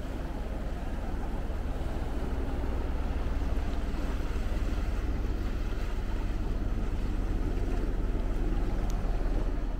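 Steady wind rumbling on the microphone, mixed with sea surf washing among coastal rocks.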